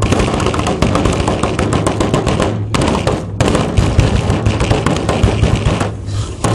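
Hands and fists drumming fast beats on a tabletop, a dense run of sharp knocks with two short pauses, one in the middle and one near the end. The camera rests on the same table, so the hits are loud and close.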